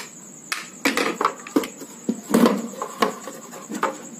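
Irregular clicks, knocks and scrapes of a screwdriver working the mixer grinder's motor-mounting screws and of the plastic mixer body and metal motor being handled, the loudest knock about two and a half seconds in.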